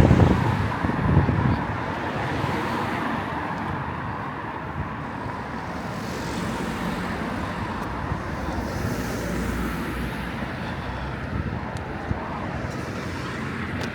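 Steady town street noise, mostly road traffic running past, with a louder low rumble in the first second or so.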